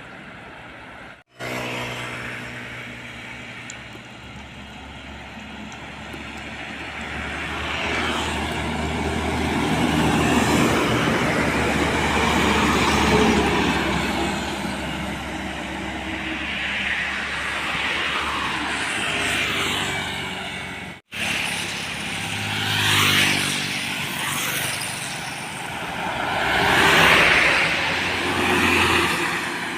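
Heavy trucks passing on a highway, their diesel engines and tyre noise swelling and fading as one vehicle after another goes by. The sound breaks off abruptly twice.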